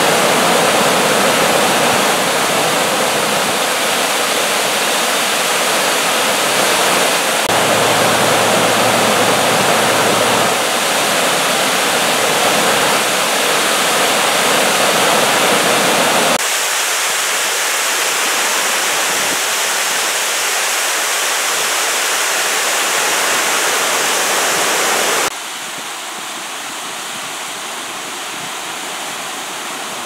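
Water pouring over a stone dam's spillway into the pool below, a steady rush of falling water. The sound changes abruptly about sixteen seconds in, and it drops to a quieter rush near the end.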